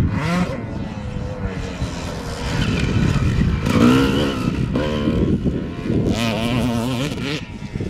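Motocross dirt bike engine revving up and down as the bike rides across the field, rising most strongly about halfway through. Wind rumbles on the microphone underneath.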